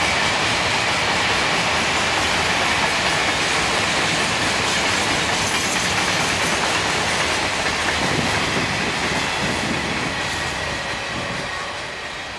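Freight train's open wagons rolling past on steel rails: a steady rumble and rattle of wheels on track with a faint high wheel squeal, dying away near the end as the last wagon goes by.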